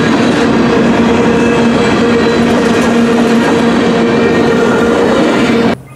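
Freight train of covered hoppers rolling past close by: loud steel-wheel rumble on the rails with a steady humming tone, cutting off suddenly near the end.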